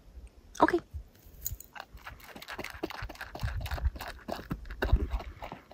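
Golden retriever eating dry kibble from a bowl: rapid, irregular crunching and chewing that begins about a second and a half in.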